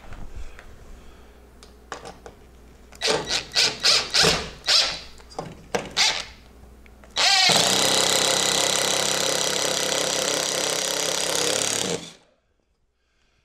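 Light knocks and rattles as a wire-shelf support bracket is set against the wall. Then a Ridgid cordless drill/driver runs steadily for about five seconds, driving the bracket's screw into a wall stud, and stops suddenly.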